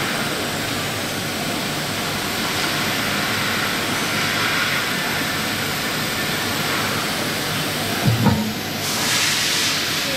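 CNC machining center running: a steady mechanical hiss with faint high whines that slowly shift in pitch as the axes move. About eight seconds in there is a brief knock, then a second-long burst of hissing.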